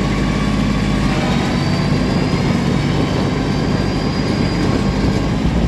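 A vehicle engine running steadily at a constant pitch.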